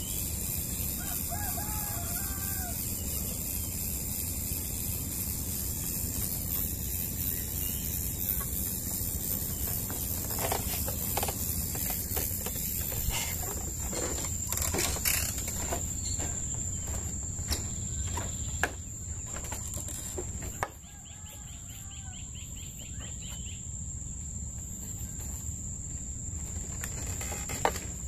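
A rooster crowing twice, once near the start and again about three-quarters of the way through, over a steady high-pitched drone and low hiss. A run of sharp clicks and knocks falls in the middle.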